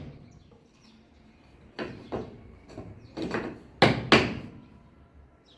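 Hammer striking a nail, about six sharp blows over two and a half seconds, the last two loudest.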